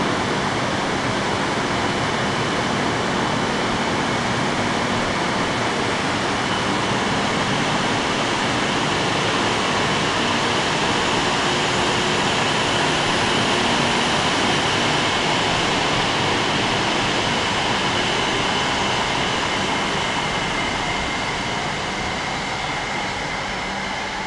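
E5 series Shinkansen train pulling out of the station, its cars rolling past with a steady rushing rumble and a faint high whine through the middle. The sound eases off near the end as the last car moves away.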